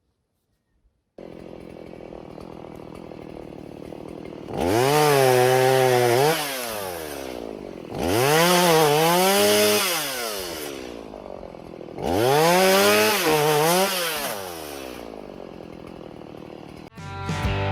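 Gas chainsaw idling, then revved up three times for about two seconds each to cut through branches, its pitch climbing, sagging in the middle and dropping back to idle after each cut. A guitar comes in near the end.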